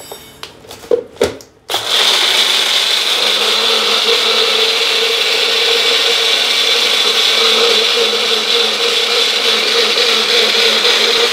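Electric mixer grinder grinding chopped raw mango into a smooth paste, for the second time. A few knocks and clicks come as the jar is handled on its base, then the motor starts suddenly just under two seconds in and runs steadily with a constant whine.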